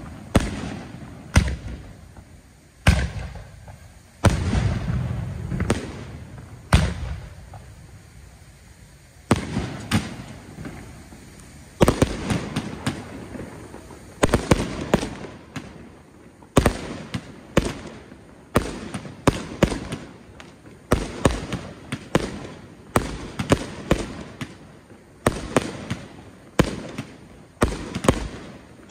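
Aerial fireworks shells bursting: sharp bangs, each with an echoing tail. They come a second or two apart at first, pause briefly, then from about halfway through follow several a second.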